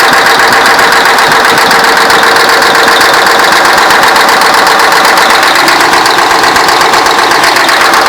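YaMZ-6581.10 diesel engine running, loud and close, with a fast, even knocking through the whole sound that the owner cannot explain.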